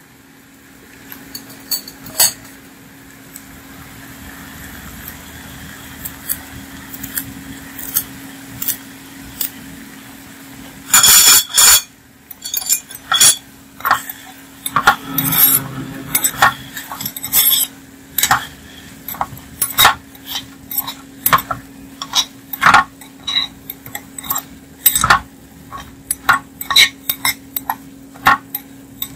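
A metal spoon stirs pork chunks in a clay pot, scraping and clinking against the pot, over a faint sizzle of pork browning in caramelised sugar. The clinks come in quick, irregular strokes from about halfway through, after a loud clatter.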